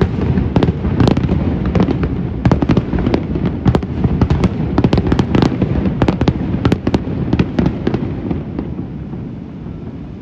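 Aerial fireworks shells bursting in quick succession, a dense string of sharp bangs and crackles over a low rumble. The bangs thin out and fade near the end as the display finishes.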